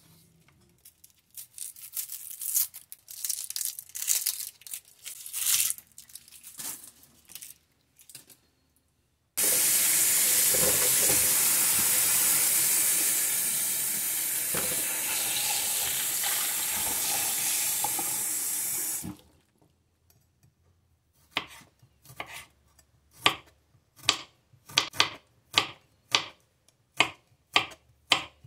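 Kitchen tap water running for about ten seconds in a stainless-steel sink, splashing over a tomato, shallot and garlic cloves being rinsed in a mesh colander. Before it, scattered light knocks and rustles of garlic being peeled and handled on a wooden cutting board. Near the end, a knife slicing garlic cloves against the board, about two cuts a second.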